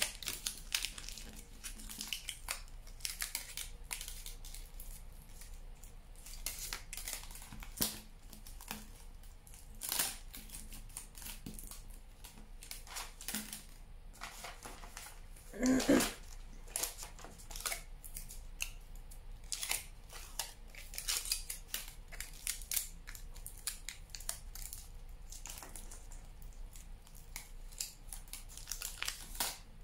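Aluminium foil crinkling and crackling in quick, irregular bursts as it is squeezed and wrapped around a copper-wire armature. There is one louder burst of handling noise about halfway through.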